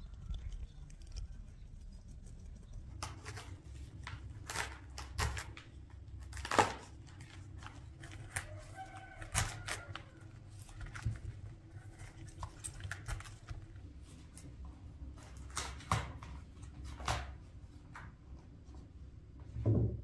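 Irregular knocks and clicks, with a few faint chicken clucks around the middle, over a low steady rumble.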